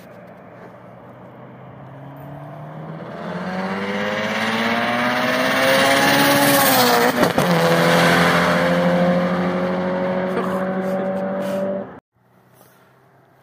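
Subaru WRX STI's turbocharged flat-four, built to about 590 whp on a BorgWarner S200 turbo at 1.9 bar, accelerating hard on a 100–200 km/h run as it approaches and passes, its note climbing and growing louder. About seven seconds in the pitch dips briefly with a sharp crack, then climbs again until the sound cuts off suddenly near the end.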